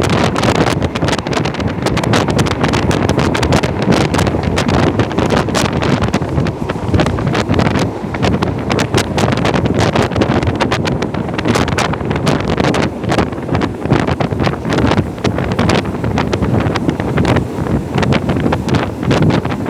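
Wind buffeting the microphone: a loud, steady rush broken by constant crackling gusts.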